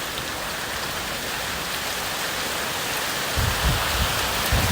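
Small hail, about the size of corn kernels, pelting down hard with rain: a dense, even hiss of pellets striking the ground. From about three and a half seconds in, irregular low thumps come and go.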